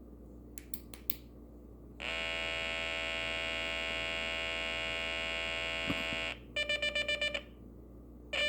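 A two-transistor, light-triggered solar alarm kit sounding: after a few faint clicks, a steady buzzy electronic tone for about four seconds, then a short burst of rapid beeps, about ten a second.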